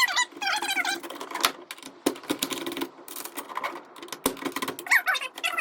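Rapid clicks and small metallic clatter of hand tools working on wires in an electrical breaker panel. Wavering high squeaks sound in the first second and again near the end.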